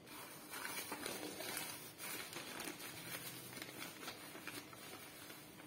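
Plastic bag of rice flour crinkling and rustling as a hand works a plastic scoop into the flour, with small crackles and clicks throughout.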